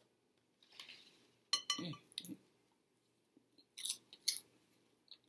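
Faint, quiet handling and mouth noises: soft clicks and a brief low vocal hum, then a short dry crackling rustle about four seconds in as a hand digs into a glass bowl of cheese popcorn.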